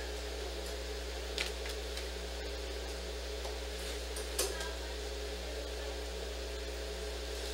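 Steady low hum of room noise, like a fan or air handler running, with two brief clicks, one about a second and a half in and a sharper one about four and a half seconds in.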